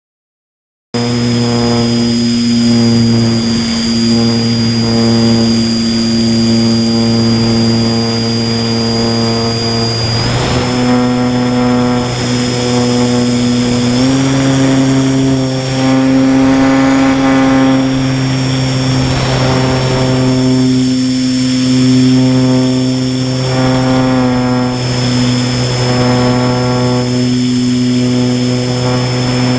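A small foam RC plane's motor and propeller running in flight, heard from the plane itself: a steady droning hum with a high whine above it. It starts abruptly about a second in, and the pitch steps up about ten seconds in and again about fourteen seconds in.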